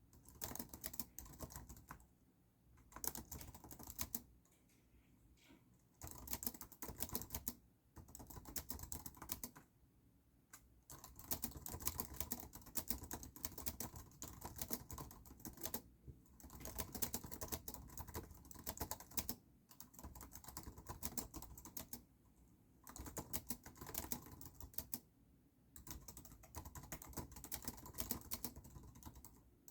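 Typing on a computer keyboard: rapid key clicks in spurts of a few seconds, broken by short pauses.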